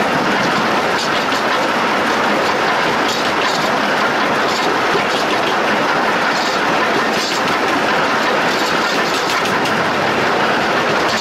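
Steam locomotive running, heard from close beside its driving wheels and rods: a loud, steady rush of running gear, wheels on rail and escaping steam, with faint repeated clicks from the track.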